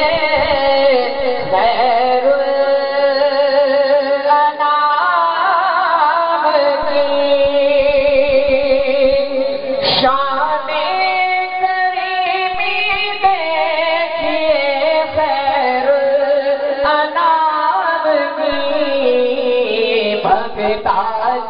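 A voice singing an Urdu naat, holding long notes with a wavering, ornamented pitch. A brief click sounds about halfway through.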